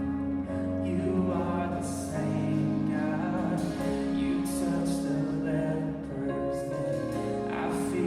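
Live worship band playing a slow song in a church room: held keyboard and guitar chords over bass, with cymbal washes and voices singing.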